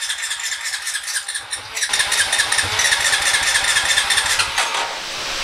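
Honda Rancher 350 ATV's single-cylinder engine on a start attempt, turning over in a quick even rhythm. About two seconds in it gets louder and fuller, and near the end a falling whine as it winds down.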